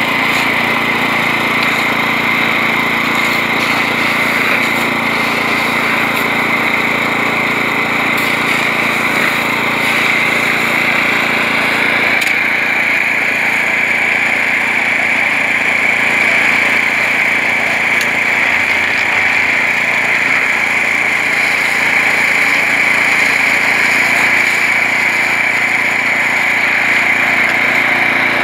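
Portable concrete mixer's small gasoline engine running steadily at a constant speed.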